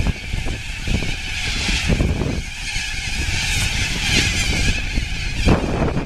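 A large flock of parrots calling overhead: a dense, high-pitched chorus that swells and fades, over a steady low rumble.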